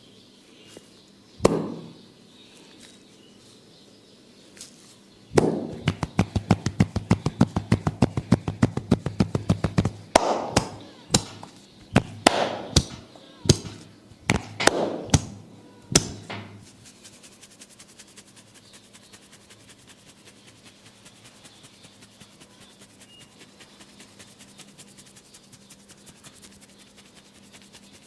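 Massage tapping on a head. One tap comes first, then after a few seconds a fast even run of taps, about five or six a second, and then a slower series of louder slaps. Faint fast ticking follows.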